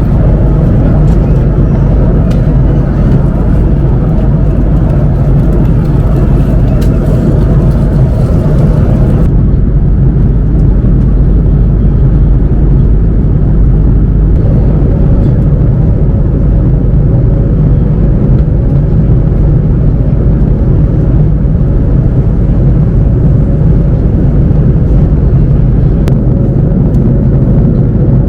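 Steady airliner cabin noise in cruise from an Airbus A330-300's engines and airflow, heavy in the low end. About nine seconds in, the higher hiss drops away abruptly. A few seconds later a faint steady hum joins in.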